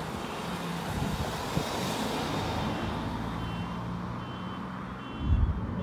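Cars driving past over a level crossing close by: engine and tyre noise that rises and then eases as they go by, with a low thud near the end.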